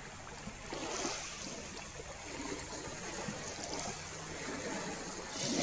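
Lake Ontario waves washing on the shore, with wind, in a steady rushing hiss that swells about a second in and again near the end.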